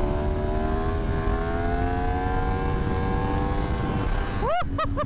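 Yamaha MT-10's crossplane inline-four engine pulling steadily through a gear, its pitch slowly rising, with wind rumbling on the microphone. Near the end the engine briefly drops away, then revs up sharply in several quick throttle blips.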